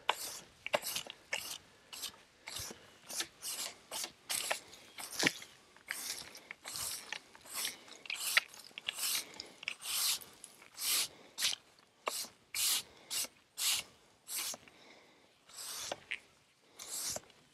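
Push broom sweeping sawdust off a freshly chainsaw-milled slab: the bristles scrape across the rough-sawn wood in short, brisk strokes, about one and a half a second.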